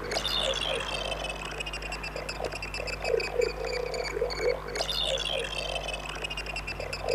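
Abstract electronic sound effects: repeated warbling chirps, rapid high-pitched blips, and a long falling sweep that comes twice, about five seconds apart.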